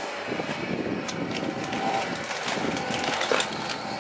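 Scattered clicks and knocks from a grey plastic drawer unit and the things in it being handled, over a steady background hiss.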